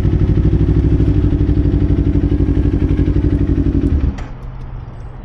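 2025 Kawasaki Ninja 500's parallel-twin engine idling at a steady pitch through an aftermarket Leo Vince LV Corsa exhaust, with an even pulsing beat. The engine sound cuts off suddenly about four seconds in.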